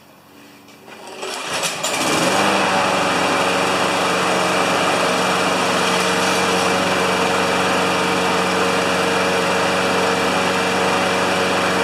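Briggs & Stratton single-cylinder four-stroke engine on a Brute walk-behind lawn mower starting up about two seconds in, then running steadily at an even speed. It now starts and runs after its failed factory spark plug was replaced.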